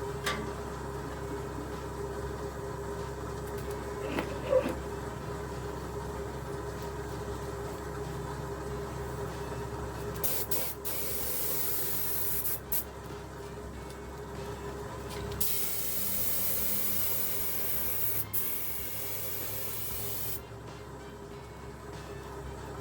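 Air spray gun hissing as it sprays high-build primer, in several trigger pulls separated by short breaks over the second half, over a steady low hum.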